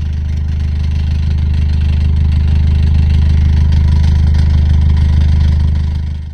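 4th-generation Honda Prelude engine idling steadily with a loud, low exhaust note from its broken exhaust pipe. It cuts off at the end.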